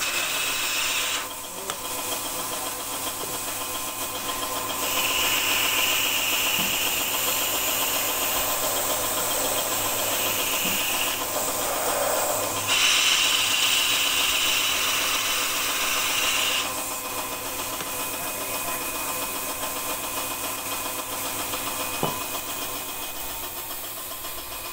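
Compressed-air paint spray gun hissing as it sprays paint onto brake discs: a short burst at the start, then two long bursts of several seconds each. A steady motor hum from the air compressor runs underneath.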